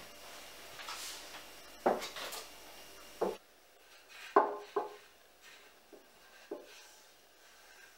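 A wooden napkin holder handled and set down on a plastic-sheeted table: about six short, light wooden knocks and clatters between soft rustles of the plastic sheet.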